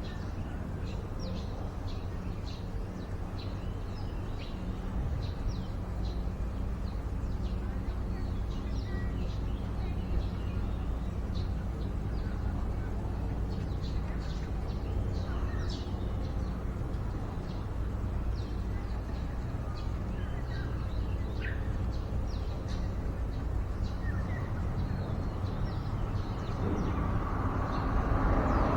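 Small birds giving many short, high chirps over a steady low background rumble. Near the end a louder rushing noise builds, like a passing vehicle.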